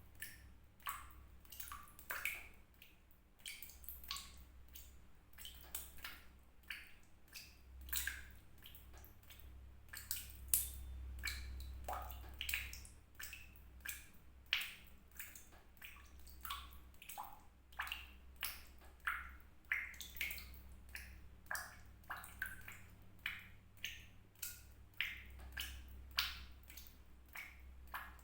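Water drops falling one at a time into water, each a short pitched plink, at an uneven pace of about one or two a second.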